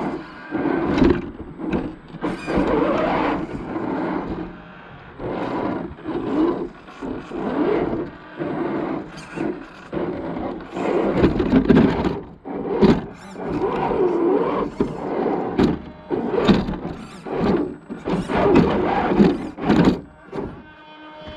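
Axial SCX10 II RC crawler's electric motor and geared drivetrain whining in short bursts as the throttle is pulsed, the pitch rising and falling, with sharp knocks and clunks from the chassis over rough ground.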